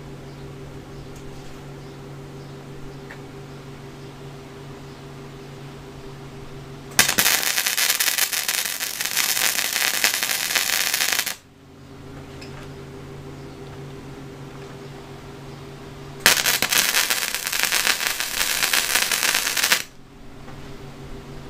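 Flux-core wire welding arc on rebar from a Harbor Freight 90 amp flux core welder, crackling in two welds of about three to four seconds each, the first about seven seconds in and the second about sixteen seconds in. A steady low hum runs between them.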